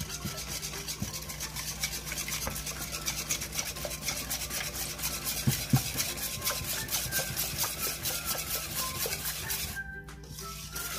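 Wire balloon whisk beating a liquid egg-yolk and milk mixture in a stainless steel bowl: quick, even strokes with the wires swishing through the liquid and ticking against the metal. There are a couple of louder knocks about halfway and a short pause near the end.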